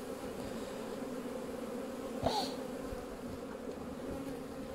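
Honeybees humming steadily in a mass around an opened hive: an even low buzz with a higher overtone above it. A short sharp knock cuts in about halfway through.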